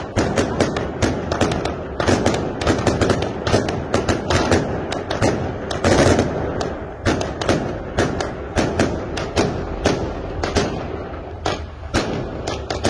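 Aerial fireworks launching and bursting overhead: a fast, irregular string of sharp bangs, several a second, keeping up without a break.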